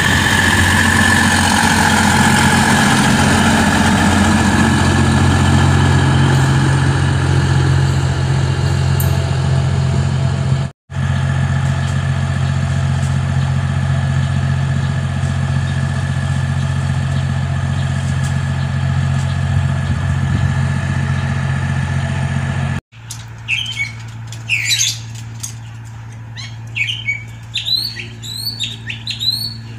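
Diesel trainset's underfloor engines running with a loud, steady low hum as it moves past close by, then diesel train engines idling with a steady drone. After a sudden cut, a quieter low engine hum with birds chirping repeatedly.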